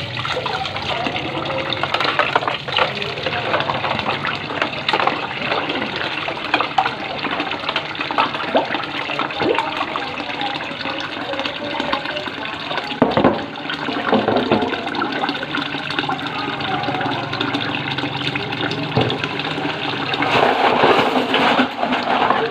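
Water running steadily while dishes and utensils clatter and knock, irregular sharp clinks throughout.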